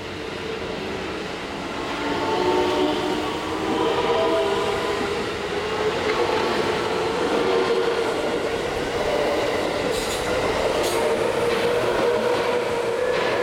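A JR West electric commuter train pulling away and gathering speed. Its VVVF inverter and traction motors make several whining tones that climb in pitch over rolling wheel and rail noise. A few sharp clacks from the wheels near the end.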